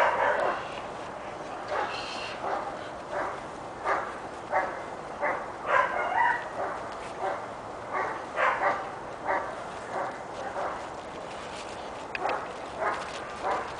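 Giant Schnauzer puppy giving short barks and yips again and again, every second or so, while tugging on a toy.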